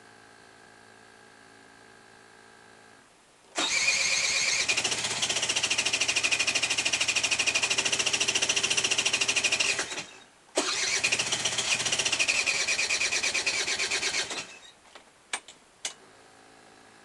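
Electric starter cranking the Aprilia SR 50 Di-Tech's two-stroke engine in two long attempts, about six and four seconds, with a fast even pulsing and no catch: the hard-starting fault. A few sharp clicks follow.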